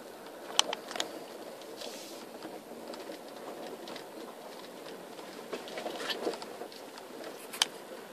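Steady noise of a car driving slowly, heard from inside the cabin. A few sharp clicks cut through it: a loud one about half a second in, another just after, and one near the end.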